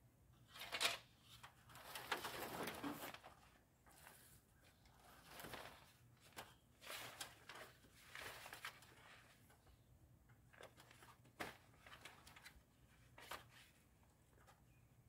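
Faint rustling of plastic sheeting with scattered light knocks and clicks as someone climbs a stepladder.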